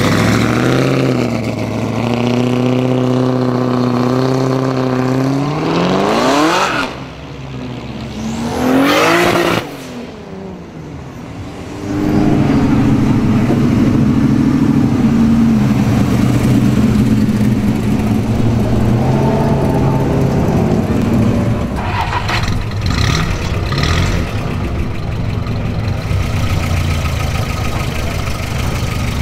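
Car engines: a black classic muscle car's engine runs with a steady low note, then its pitch rises steeply twice as it accelerates away, about six and nine seconds in. Another vehicle's engine then runs steadily, with a few short rises and falls in pitch.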